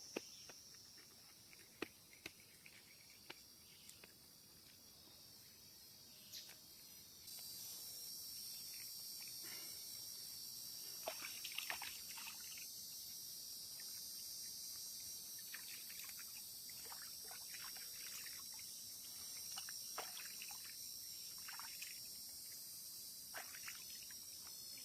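Crickets and other insects chirring steadily in a high pitch, louder from about seven seconds in, with short splashes and trickles of water and small clicks scattered through the second half.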